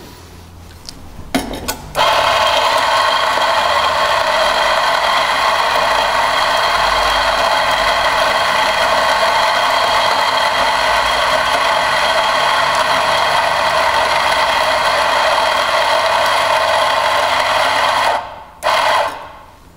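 ECM C-Manuale 54 flat-burr coffee grinder running, grinding espresso straight into a portafilter at a setting one step finer. The motor starts about two seconds in, runs steadily for some sixteen seconds, stops, then gives one short extra burst near the end.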